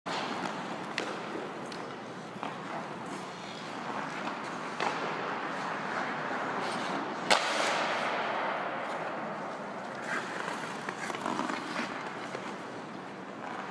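Hockey skates scraping and carving across rink ice, with scattered sharp clicks and a louder crack about seven seconds in, after which the scraping hiss swells for a couple of seconds.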